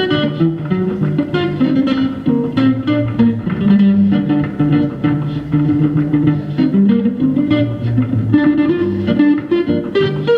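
Solo guitar played by a busker: a picked melody over a moving low bass line, with no singing.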